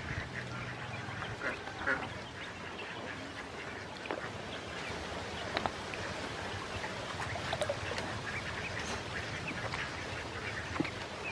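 A flock of domestic ducklings peeping, many short, high calls overlapping without a break.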